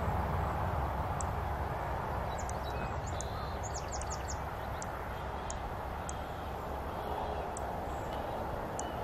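Steady outdoor wind rumble and hiss, with small birds giving short, thin, high chirps about once a second and a quick run of chirps around three to four seconds in.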